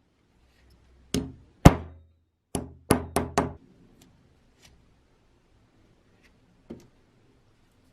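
A series of sharp knocks on a hard object, each ringing briefly. Two come a little after one second in, four follow in quick succession around three seconds, and a lighter one comes near the end.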